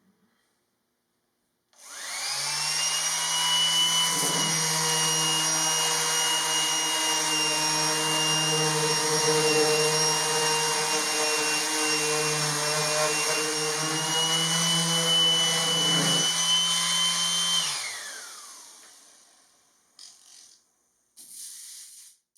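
Jellas random orbital sander switched on, spinning up and running steadily while rough-sanding a mahogany countertop with coarse (about 100) grit, then switched off, its whine falling as it winds down, with a few light knocks after.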